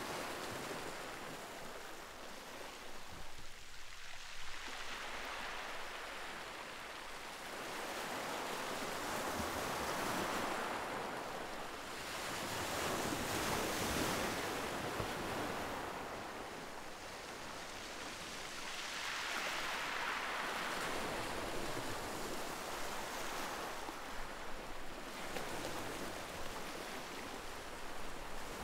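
Ocean surf: waves rolling in and breaking as a hiss that swells and fades, loudest about halfway through and again about two-thirds through.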